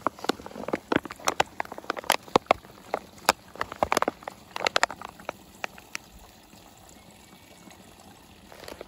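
Filtered water trickling from a gravity or squeeze water filter into a bottle, with irregular sharp clicks and crinkles from the plastic water bag being handled. The clicks thin out about halfway through, leaving a quieter stretch.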